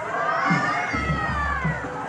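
Temple procession music: a high, wavering melody over drum beats about every half second, with crowd noise.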